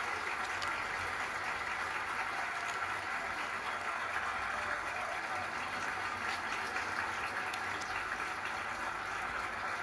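Steady hissing background noise, with a few faint ticks and rustles as a small folded paper card on a string is handled.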